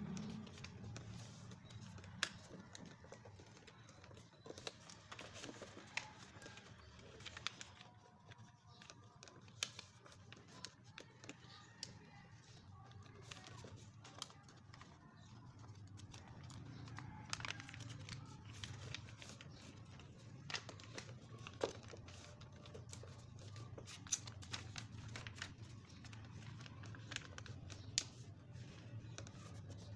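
Sheet of paper being handled and creased while a paper plane is folded: soft rustling with scattered sharp crinkles and clicks, over a faint low hum.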